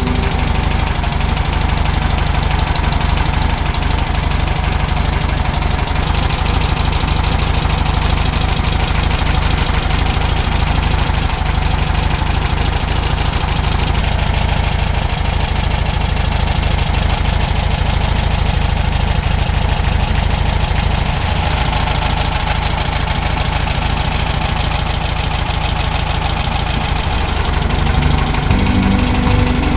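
The air-cooled flat-four engine of a freshly restored, zero-mile 1965 Volkswagen Beetle idling steadily.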